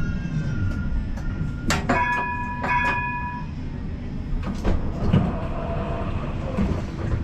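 A GVB Combino tram running on its rails: a steady low rumble with occasional knocks from the wheels. About two seconds in, two short ringing tones sound about a second apart.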